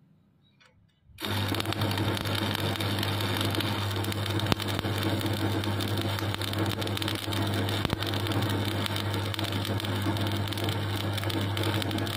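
Stick (shielded metal arc) welding: the arc strikes about a second in, then runs as a steady crackling sizzle over a strong low hum while the electrode lays a vertical-up bead on steel plate.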